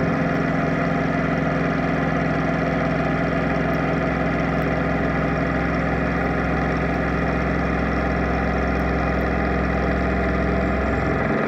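Kompas VF45GS CNC milling machine side-milling a steel plate with an end mill: a steady, loud mechanical drone from the spindle drive under cutting load. The low tones shift briefly near the end.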